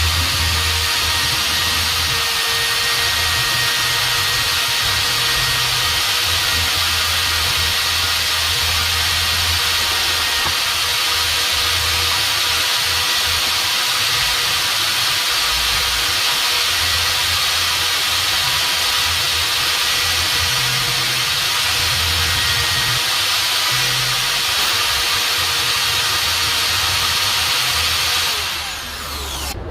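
Electric abrasive power tool working an old iron spoon, running steadily with a dense hiss of abrasive on metal over a hum. About 28 seconds in it is switched off and its pitch falls as the motor spins down.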